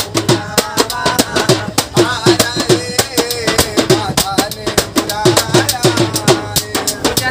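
Hand drum with a metal shell beaten in quick, steady strokes, with a man singing a devotional bhajan over it.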